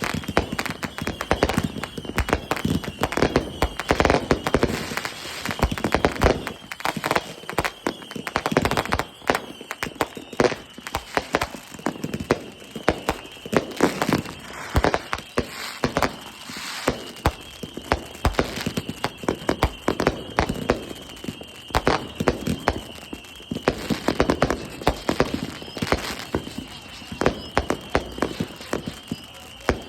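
Consumer fireworks going off in a rapid, continuous stream of crackling pops and sharp bangs, with clusters of heavier booms every few seconds.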